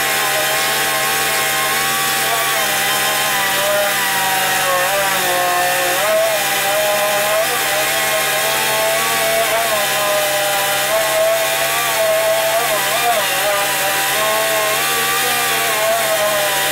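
Air-powered dual-action (DA) sander running steadily as it sands the painted edge of a car hood, a constant whine that wavers slightly in pitch.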